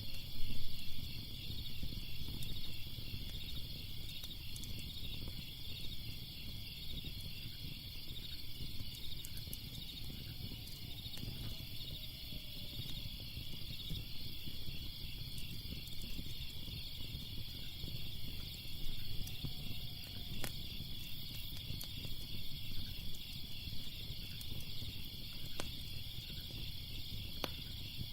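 Crickets chirping in a steady, fast-pulsing chorus, over a low rumble with scattered sharp crackles and pops from a wood fire; one louder burst of crackling about a second in.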